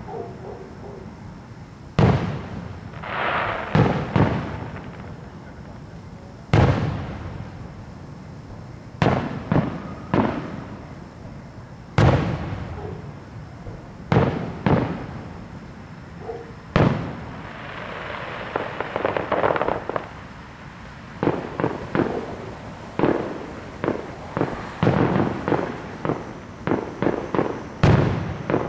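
Aerial firework shells bursting: sharp bangs a few seconds apart, each with an echoing tail, and two longer hissing stretches between them. Over the last several seconds the bangs come in a quicker run.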